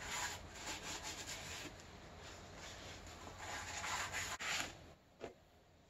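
Rag scrubbing the inside of a small-block Chevy cylinder bore by hand, in quick repeated rubbing strokes, cleaning out the grime. The scrubbing stops just before five seconds in, followed by a single faint click.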